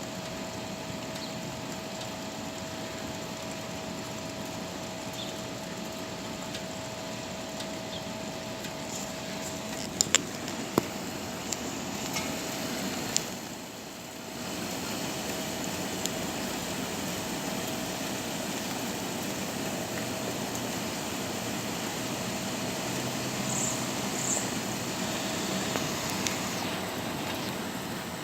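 Steady storm noise, rain-like hiss, with a few short high bird chirps and a handful of sharp clicks about ten to thirteen seconds in.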